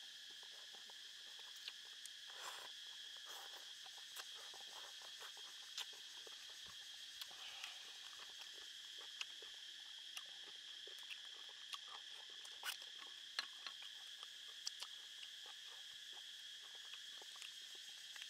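Steady, high-pitched chirring of forest insects, with scattered small clicks and crackles of eating and of a cooked prawn's shell being peeled by hand. The loudest clicks come a little past the middle.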